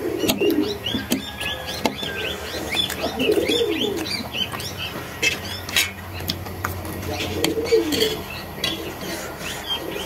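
Birds calling: low cooing calls recurring a few times, and a run of rapid high chirps in the first few seconds. A few sharp clicks of a fork against a steel plate come in between.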